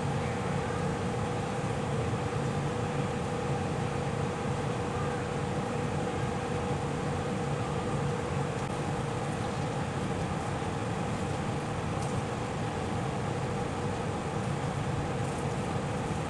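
Steady mechanical hum over a constant rushing noise, with two held tones that never change.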